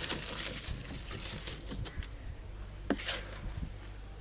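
Damp M-sand being scraped and spread by hand and with a plastic bowl over the plastic floor of a fridge liner, then scooped from a basin: an uneven gritty scraping and rustling with small clicks, and one sharper knock nearly three seconds in.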